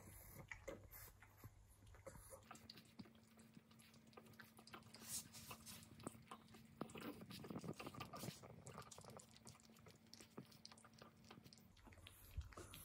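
Faint licking and nibbling sounds from a pug and a kitten grooming close together, over a faint steady hum through most of it.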